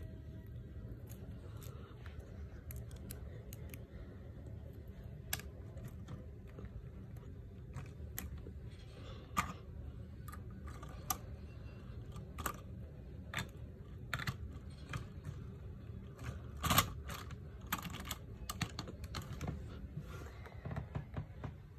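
Lego train running on plastic Lego track: irregular light plastic clicks, thickest in the second half with one louder click near the end, over a steady low hum.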